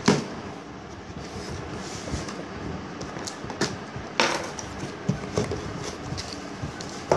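Cardboard box being opened by hand: flaps folded back and packing handled, with several sharp knocks and scrapes, the loudest about four seconds in, over a steady background hiss.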